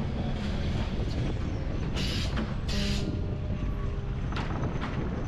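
Yellow Lisbon street tram passing close by with a steady low rumble, and two short hissing bursts about two and three seconds in.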